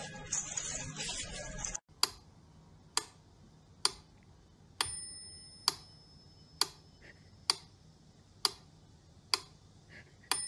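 Mechanical pendulum metronome ticking steadily, a little faster than one tick a second. Twice a short bell-like ring sounds with a tick, on every sixth beat.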